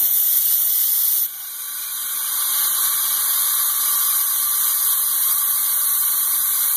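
Compressed air hissing through an air chuck snapped onto a PVC air cannon's fill fitting, filling its pressure chamber from a compressor set to 75 psi. A louder hiss drops off suddenly just over a second in, then a steady hiss builds back up and holds.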